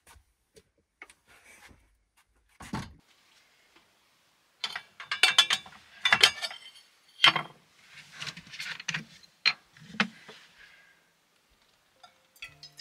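Aluminium kettle handled on a gas stove: its lid and body clink and rattle in a dense run of sharp metal knocks with a brief ring, after a few faint clicks and a soft knock. Near the end, water begins pouring into the kettle.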